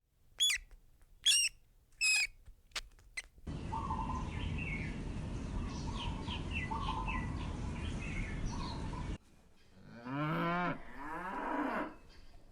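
A few sharp bird chirps, then birds chirping over steady outdoor background noise that cuts off suddenly, followed near the end by a cow mooing.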